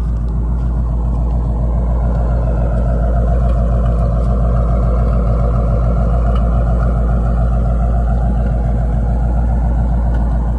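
Ford 302 small-block V8 idling steadily and deep through its exhaust, still warming up after a cold start; as it warms it idles higher by itself.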